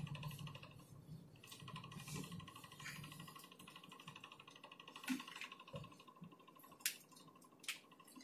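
Faint scratching and light tapping of writing on a board, with a few sharper clicks in the second half.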